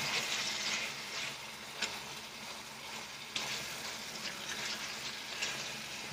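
Food sizzling steadily in a hot frying pan as it is stirred with a spatula, with two brief knocks of the spatula against the pan.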